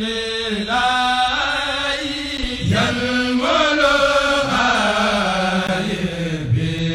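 Chanted vocal music: a voice holding long notes that slide slowly between pitches, over a steady low drone.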